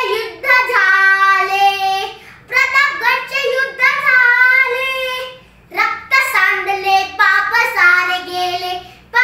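A young boy singing a Marathi powada unaccompanied, in three long phrases with held notes and short breaks for breath between them.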